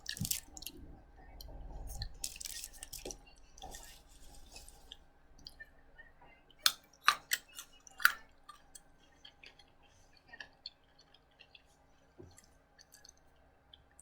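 Quiet eating sounds: chewing and mouth noises with scattered sharp clicks and a few short rustles, the loudest clicks about seven and eight seconds in.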